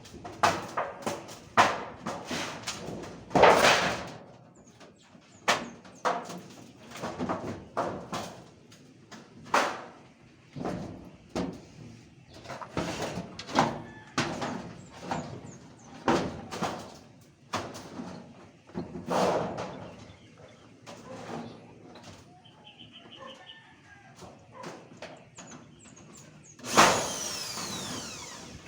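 Irregular knocks, bangs and clatter of construction work. Near the end a power drill runs for about two seconds.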